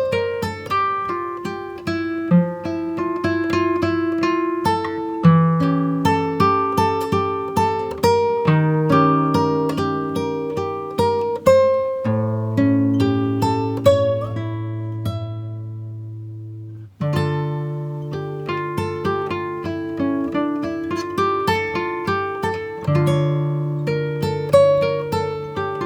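Background music: a fingerpicked acoustic guitar piece, plucked notes over a steady bass line. About halfway through, a chord is left to ring and fade. Just after that the sound cuts out briefly, and then the picking resumes.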